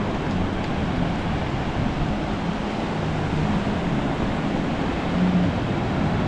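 Steady wash of ocean surf at the beach, with wind rumbling on the microphone.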